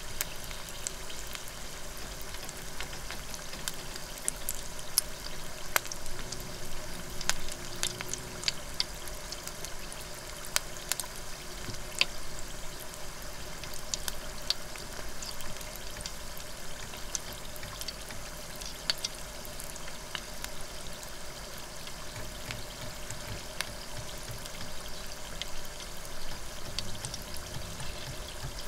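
A frozen loempia (spring roll) deep-frying in hot oil in an electric deep fryer's wire basket: a steady bubbling sizzle with scattered crackles and pops.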